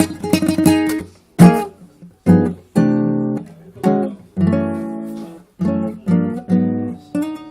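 Acoustic guitar played solo: chords strummed and plucked one after another, each ringing and dying away, with a brief gap about a second in.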